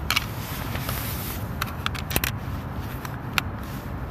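Plastic clicks and scraping of a Browning trail camera being handled and its case snapped shut, several sharp clicks spread through, over a steady low rumble.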